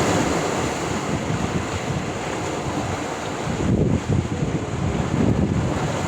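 Sea waves washing and breaking on the shore, a steady rush of surf. Wind buffets the microphone, with stronger low gusts in the second half.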